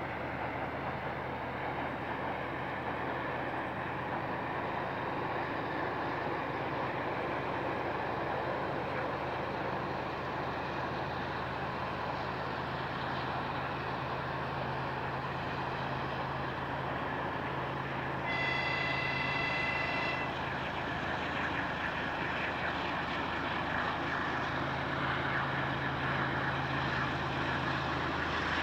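Distant TE33AC diesel freight locomotive (GE Evolution V12 engine) running as the train approaches, a steady low drone growing slightly louder. About two-thirds of the way through, a horn sounds once for about two seconds.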